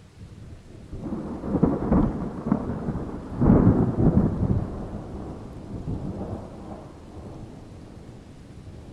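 A thunder rumble that starts low and builds about a second in, with its loudest peaks around two and three and a half seconds in, then rolls on and slowly fades.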